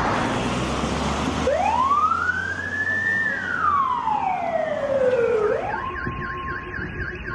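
Ambulance siren wailing: one slow rise and fall in pitch over about four seconds, then switching to a fast warble, about four a second, over a steady tone.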